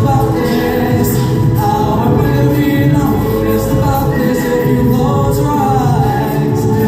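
A vocal group singing a cappella, several voices together in harmony without instruments, continuing steadily.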